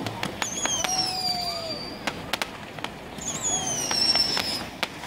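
Small fireworks going off: two high whistles, each falling slightly in pitch for about a second and a half, one near the start and one about three seconds in, among scattered sharp pops and cracks.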